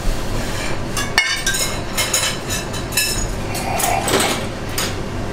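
Busy restaurant-kitchen clatter: porcelain dishes and cutlery clinking and knocking, with a sharp knock about a second in, over a steady low hum.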